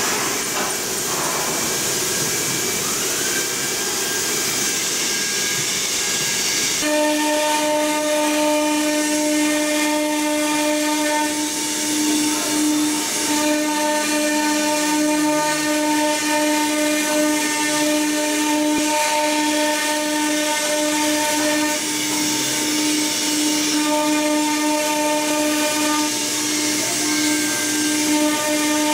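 Spindles of a two-head ATC CNC router running, with a steady high whine and hiss as they engrave particleboard. About seven seconds in, the sound shifts abruptly to a louder, clearer whine with brief breaks as the cutters move.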